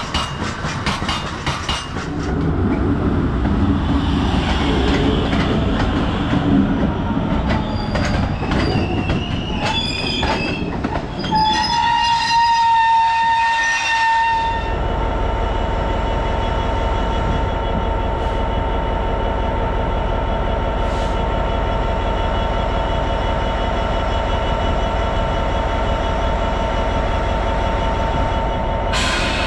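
A freight train of open box wagons running past behind a Class 66 diesel locomotive, with clicking and high-pitched wheel squeal from the wagons. Partway through comes a steady low diesel rumble with a constant whine from a Class 66 standing alongside, its two-stroke V12 engine idling.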